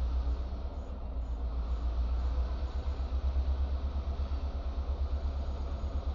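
Diesel-electric locomotives running as they creep along the track: a low, deep rumble that throbs several times a second.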